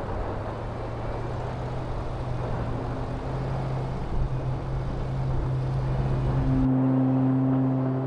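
Truck driving on a snowy trail: a steady engine hum under road and tyre noise. About two-thirds of the way in, the sound cuts to a steady low drone with held tones, like ambient music starting.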